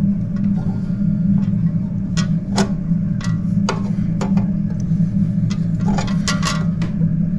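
Irregular clicks and light metallic knocks of hand tools and clock parts being handled, over a steady low hum.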